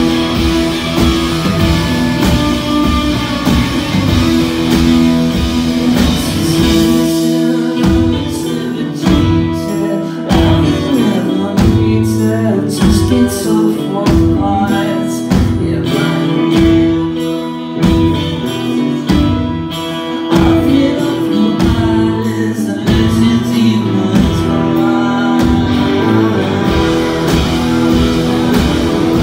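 A live rock song played loud: strummed steel-string acoustic guitar with a male voice singing. About seven seconds in, a strong regular beat comes in under the guitar.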